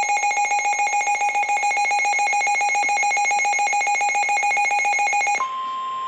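Midland WR400 weather radio's built-in alert alarm: a loud, rapidly pulsing electronic beep. About five and a half seconds in it cuts off abruptly and gives way to the steady 1050 Hz warning alarm tone of the NOAA Weather Radio broadcast, which signals that a weather warning is being issued.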